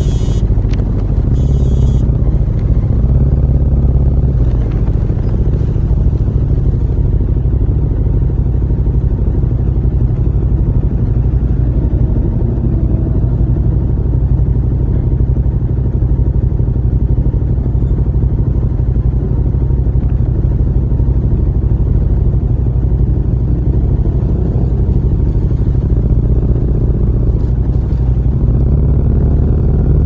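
Yamaha MT-07's parallel-twin engine running at low speed through an aftermarket muffler with an outlet of almost 4 inches, giving a loud, deep rumble.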